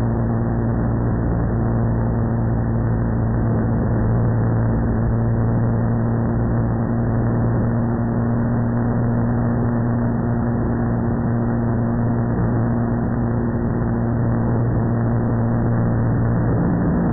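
Electric motor and propeller of a ParkZone Sukhoi SU-29MM RC plane, heard from the camera mounted on the plane: a steady low drone at constant throttle under a dense rush of wind.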